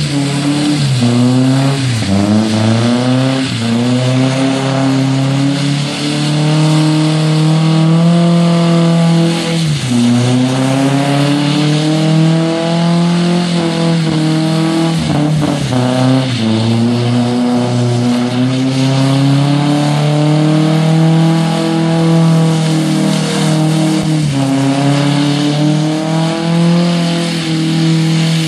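Pickup truck engine held at high revs while the rear tires spin on wet pavement in continuous donuts. The revs sag and climb back about four times, and the tires add a steady hiss.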